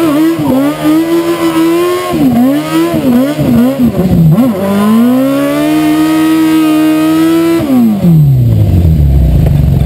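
Campagna T-Rex three-wheeler's engine revving hard during donuts: the revs swing up and down several times, climb and hold high for a few seconds, then fall back toward idle near the end.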